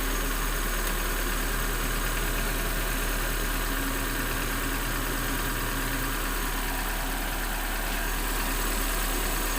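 Hyundai Getz 1.1-litre engine idling steadily with the air-conditioning compressor running while R134a refrigerant is being charged.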